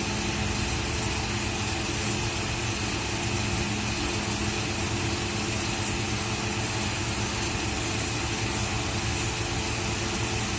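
A steady mechanical hum with a constant hiss, unchanging throughout.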